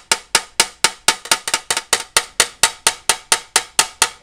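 Small chasing hammer tapping quickly and evenly on the brass body tube of a vintage Martin tenor saxophone, about four light, ringing metal taps a second. The hammer is chasing down the little ridges and creases left by a dent so the metal can be brought back flat.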